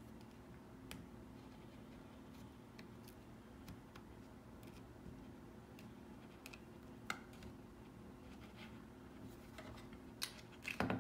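Faint scattered small clicks and ticks of plastic pry picks working around the edge of an iPhone 6 screen held by a suction cup, prying the screen away from the frame, with a few sharper clicks near the end. A faint steady low hum lies underneath.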